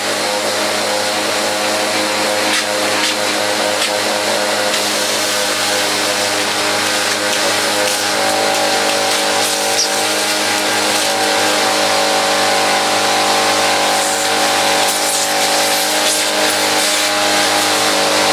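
A second vacuum cleaner running steadily, its motor whine over the hiss of rushing air as it sucks packed dirt out of a clogged Dyson V6 filter. The tone shifts slightly about eight seconds in.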